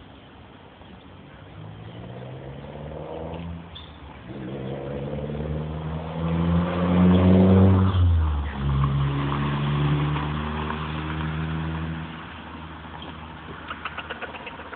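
A motor vehicle's engine passing by: its pitch and loudness climb as it approaches, peak about seven seconds in, then the pitch drops sharply as it passes and the sound fades. A quick run of clicks comes near the end.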